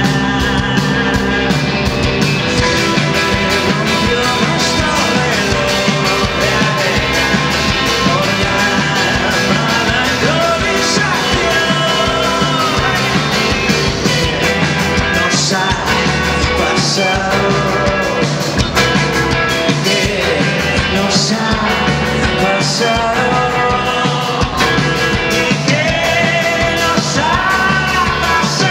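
Live rock band playing with electric guitars and drums, a singer's voice over the music.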